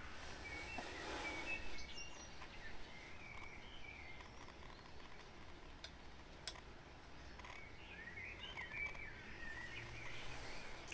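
Faint bird chirping and twittering over a quiet background hiss, in two bursts, one early and a busier one near the end, with a couple of sharp clicks about six seconds in.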